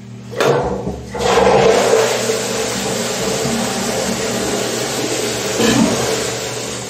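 Newly fitted Saudi Ceramics high-level cistern flushing into a squat toilet pan after its pull cord is yanked. Water rushes in suddenly about half a second in, surges fully a moment later, and runs steadily, easing off toward the end.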